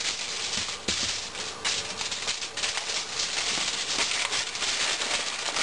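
Reynolds Wrap aluminium foil crinkling and crackling continuously as it is folded and crimped by hand around a potato.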